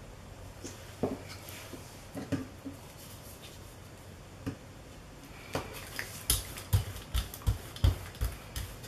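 A brayer rolled quickly back and forth over a gel printing plate to spread acrylic paint, giving a run of soft, rhythmic thumps about three a second that starts about halfway through. Before that there are only a few faint clicks and taps.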